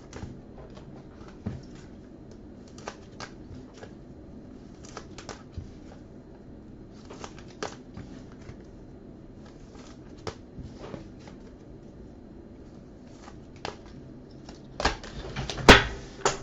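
Trading cards being handled and sorted on a table: scattered light clicks, taps and brief sliding or rustling noises, with a busier cluster and a louder knock near the end.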